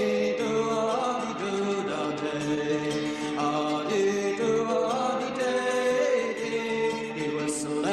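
Folk song music with voices singing wordless held notes in harmony, the melody moving from note to note every second or so.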